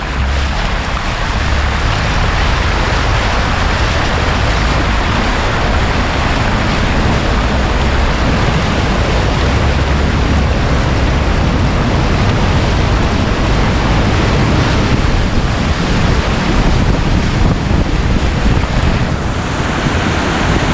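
A vehicle's tyre ploughing through floodwater on a road, throwing up a continuous rushing wake and spray. Heavy wind buffeting on the microphone adds a low rumble throughout.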